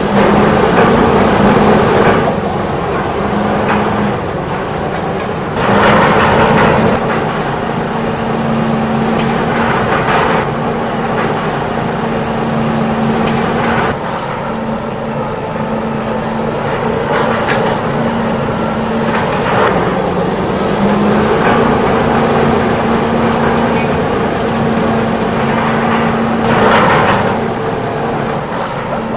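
Remote-control toy excavator running: its small electric motors whir steadily, shifting between two pitches, with several louder noisy bursts.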